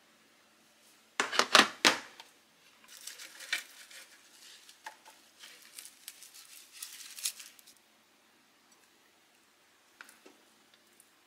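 Plastic food-storage boxes and lids being handled on a kitchen counter: a quick run of sharp plastic clacks, then several seconds of rustling and light tapping as leaves and containers are moved. It goes quiet apart from one small click near the end.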